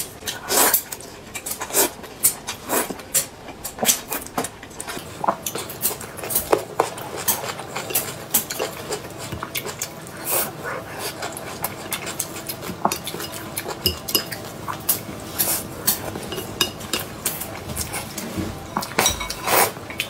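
Close-up eating sounds: noodles and soup slurped and chewed, with chopsticks clicking irregularly against a ceramic bowl.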